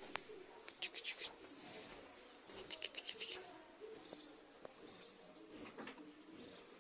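Faint chirping of small birds in short quick runs, about a second in and again around three seconds in, with a few weaker chirps later.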